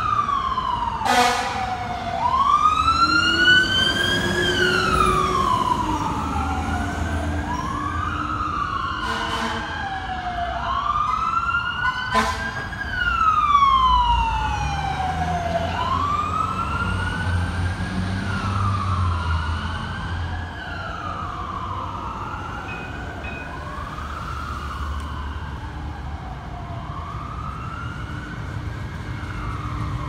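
Fire truck siren wailing, rising and falling in pitch about every two and a half seconds, a little fainter in the second half, over street traffic rumble.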